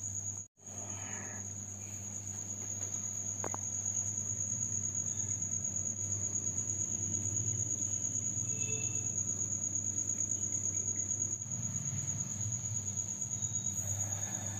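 A cricket's continuous high-pitched trill, holding one steady pitch throughout, over a low steady hum.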